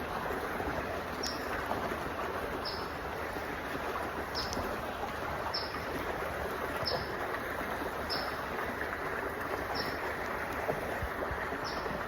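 Steady rush of flowing creek water, with a bird repeating one short, high, slightly falling chirp about nine times, roughly every second and a half.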